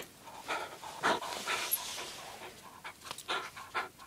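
A small terrier panting quickly and rhythmically, close up, while tugging at a toy.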